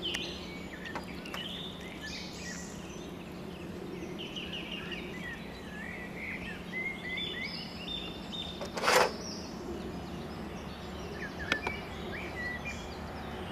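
Songbirds chirping and singing over a steady low hum, with one sharp knock about two-thirds of the way through, the loudest sound, and a couple of lighter clicks near the end as the metal frame is handled.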